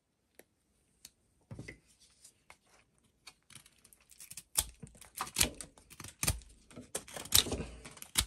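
Mikov Stovka pocketknife: a couple of faint clicks as the blade is opened, then the blade shaving dry wood off a stick in quick scraping strokes. The cuts get louder about halfway through, with the strongest strokes coming roughly once a second.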